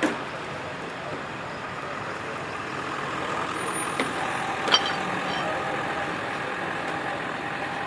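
Pickup trucks and cars driving slowly past, a steady noise of engines and tyres, with two sharp clicks or clanks about four and five seconds in.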